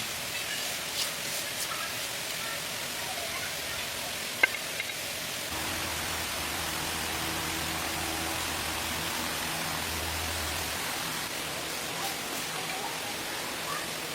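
Steady outdoor background hiss, with a faint low hum from about five to eleven seconds in and a single sharp click about four seconds in.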